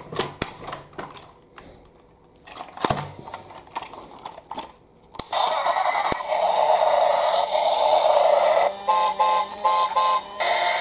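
Hard plastic toy trains clicking and knocking as they are handled. About five seconds in, a battery-powered plastic Thomas toy engine is switched on and runs with a steady whirring noise, while its wheels spin in the air. Near the end come several short electronic toots or beeps in a row.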